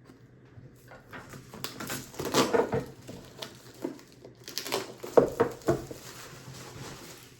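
Cardboard packaging being handled and worked open by hand: irregular scraping, rustling and tapping in two busy stretches, about two seconds in and again around five seconds in.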